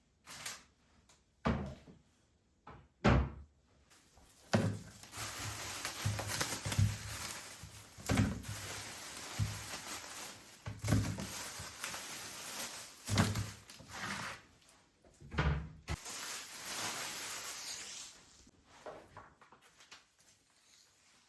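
Several knocks and thuds of household objects being handled, with a steady rushing hiss underneath from about four seconds in until near the end.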